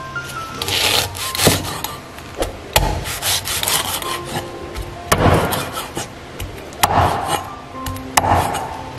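A heavy cleaver chopping lemongrass stalks on a thick round wooden chopping board: irregular sharp knocks on the wood, mixed with scraping strokes of the blade.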